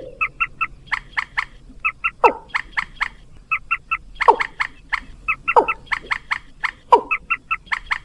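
Recorded lure calls of common moorhen and watercock played for bird trapping. Quick runs of short, sharp, clicking notes alternate with louder calls that slide downward, one every second or two.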